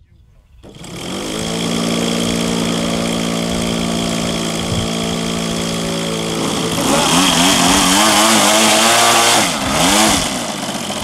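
Engine of a large RC model airplane idling steadily, then revved up and down for about three seconds in a wavering run-up before easing back to a lower level.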